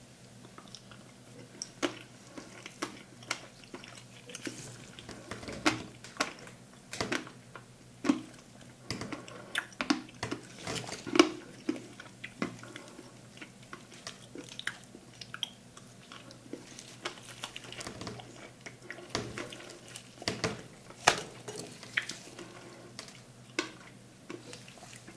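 Metal spatulas scraping and tapping on a cold plate as rolled ice cream is worked, making irregular sharp clicks and short scrapes over a low steady hum.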